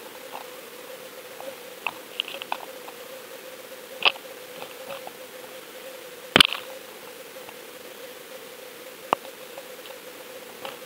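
Underwater fishing-camera rig on the line: a steady low hum with scattered clicks and knocks against the camera housing, the loudest a sharp knock about six seconds in.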